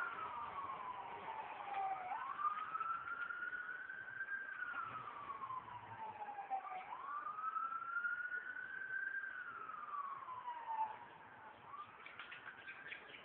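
Emergency vehicle siren in a slow wail, rising and falling in pitch about every four to five seconds, and a little fainter near the end.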